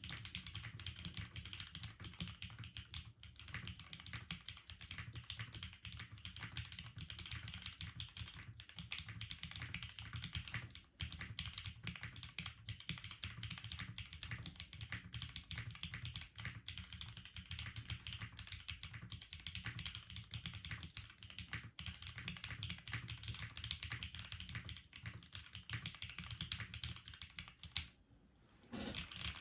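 Continuous typing on a TGR 910ME mechanical keyboard, top-mounted on a polypropylene plate with Cherry MX Black linear switches: a steady stream of keystroke clacks. It pauses briefly near the end, then resumes.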